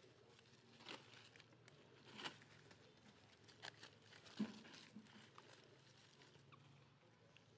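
Near silence, with a few faint crackles and rustles of dry leaf litter as young macaques shift about on the ground; the sharpest crackle comes about four and a half seconds in.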